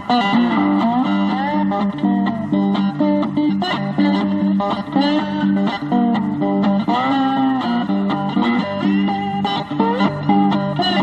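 Background music led by electric guitar over bass, with bending notes.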